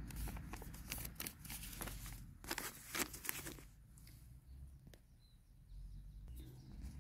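Crackling and clicking handling noise close to a phone's microphone, dense for the first three and a half seconds and then sparse, over a low wind rumble on the microphone.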